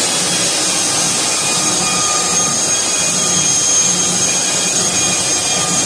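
Hardwood floor sander running steadily, a loud even noise with a high whine.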